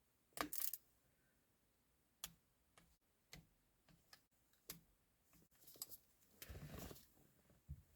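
Faint scattered clicks and light clinks of small parts and tools being handled while fitting a car's shift kit, loudest just under a second in, with a brief rustle near the end.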